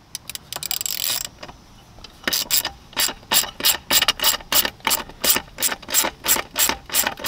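Socket ratchet clicking in quick even strokes, about three a second, as it turns a nut on an awning mount bracket to take the mount off. A few scattered clicks come first, before the steady ratcheting starts about two seconds in.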